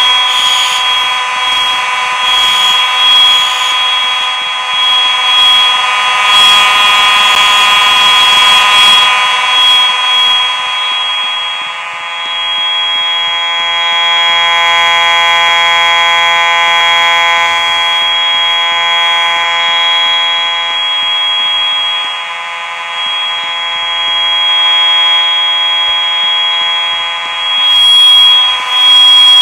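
School fire alarm horns, a mix of Simplex models, sounding together without a break during an alarm test. They make a buzzy chord of several pitched tones with a steady high tone on top, swelling and dipping in loudness.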